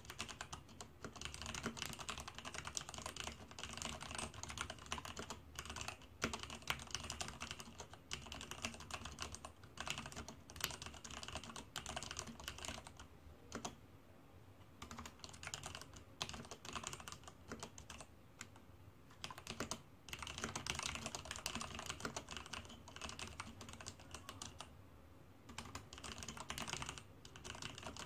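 Typing on a Leopold FC660M mechanical keyboard with heavy linear Cherry MX Black switches: a steady stream of keystrokes, broken by a few short pauses.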